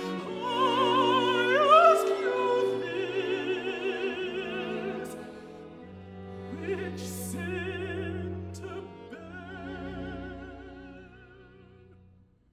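A countertenor sings a classical song with wide vibrato, accompanied by sustained bowed strings. The phrase dies away near the end.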